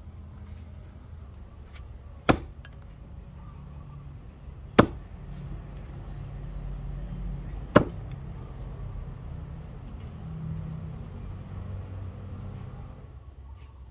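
A True Temper Vulcan double-bit axe strikes a wooden chopping stump three times, sharp single chops about two and a half to three seconds apart, over a steady low rumble.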